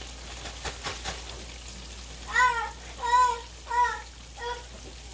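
Chicken frying in oil with a steady sizzle and a few faint clicks early on. From about two seconds in come four short rising-and-falling vocal calls, evenly spaced and louder than the frying.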